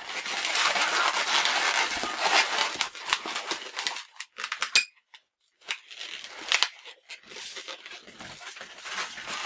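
Inflated latex modelling balloons being twisted and rubbed against each other by hand, a dense squeaking and rubbing of latex on latex. It breaks off about four seconds in and then resumes as sparser, scattered squeaks.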